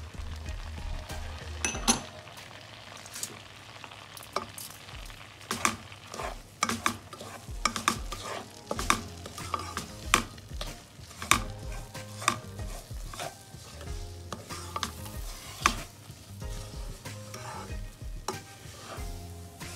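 Semolina toasting in melted butter in a non-stick frying pan, stirred with a slotted spatula: the spatula scrapes and taps irregularly against the pan over a soft sizzle.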